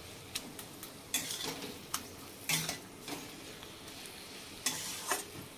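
A metal spatula stirring and scraping thick cabbage and potato curry around a metal kadai, giving short irregular scrapes about once or twice a second over a faint steady hiss from the hot pan.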